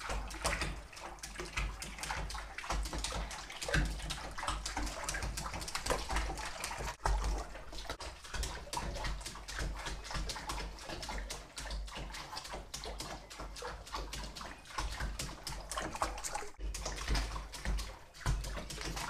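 Bathtub water splashing and sloshing without pause as an apple-head Chihuahua dog-paddles.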